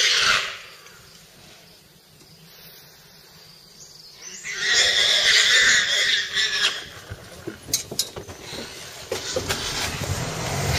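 Wild boar squealing in distress under a tiger's attack: a high squeal that cuts off about half a second in, then a second long squeal of about two seconds from roughly four and a half seconds in. A few sharp clicks follow.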